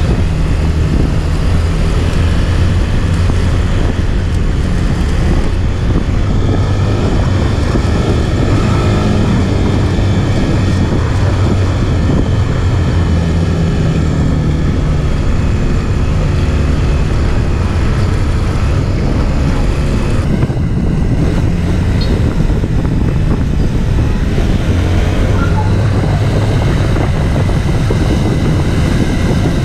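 Police motorcycle engines running while riding through city streets, heard from the rider's own bike, the engine note changing with the throttle.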